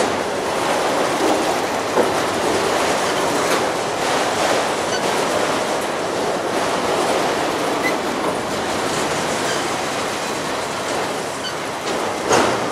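Freight train cars rolling past, wheels clattering steadily over the rail joints, with brief high squeaks now and then and a sharper clank near the end.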